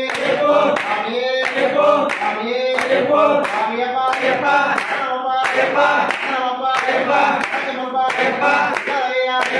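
A group of devotees singing a devotional bhajan in chorus, with a steady beat of hand claps keeping time.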